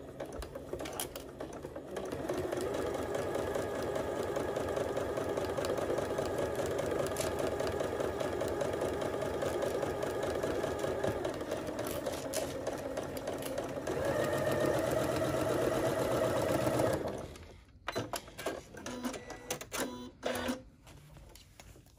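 Electric sewing machine stitching a seam through layered fabric. It runs quietly at first, picks up speed about two seconds in and again later, then stops abruptly a few seconds before the end, leaving small clicks and fabric handling.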